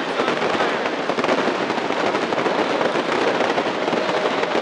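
Fireworks and firecrackers set off in the burning falla, crackling in a dense, unbroken barrage at a steady loud level.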